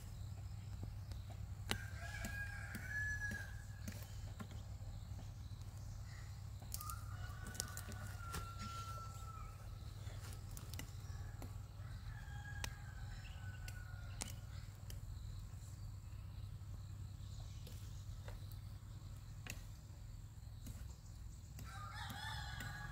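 Roosters crowing: four long, slightly falling crows a few seconds apart, the last near the end, over a steady low hum with scattered clicks.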